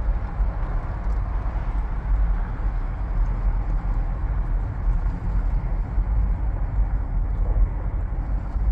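Steady rumble of a car driving along: engine and road noise that stays even throughout.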